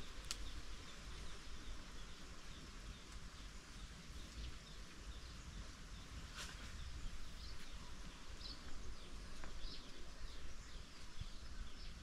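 Outdoor ambience of scattered short bird chirps over a steady hiss and a low wind rumble on the microphone, with a few sharp clicks.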